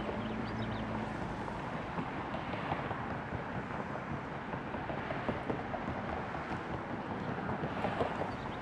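Steady rushing outdoor noise, with a faint low hum in the first second and a few faint high chirps near the start and near the end.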